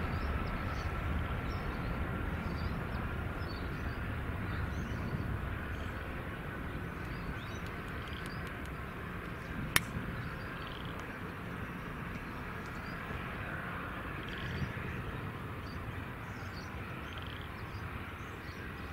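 Distant rumble of an Airbus A350-900's Rolls-Royce Trent XWB jet engines, slowly fading as the airliner climbs away after takeoff, with a faint steady whine above it. A single sharp click comes about halfway through.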